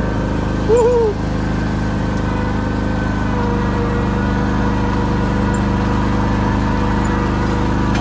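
Small engine of a slow-moving ride-on vehicle running at a steady speed, an even drone with no change in pitch.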